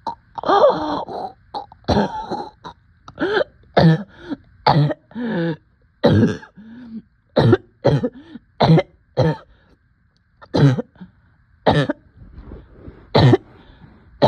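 A person coughing over and over in a long fit: about fifteen short, harsh coughs, some voiced, with a brief pause about ten seconds in.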